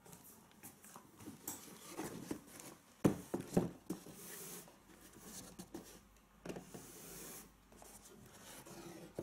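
Hands handling a pair of Nike Cortez sneakers, the uppers rubbing and rustling against the fingers, with two sharper knocks about three seconds in.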